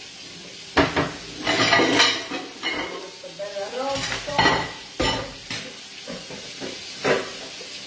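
Dishes and cutlery clattering as they are cleared away, with several sharp clinks and knocks. Underneath, the steady sizzle of a stuffed roast browning in a lidded pan.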